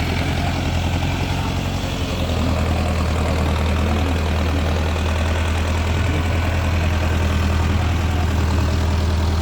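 Heavy diesel engine running steadily with a deep hum, a little louder from about two seconds in.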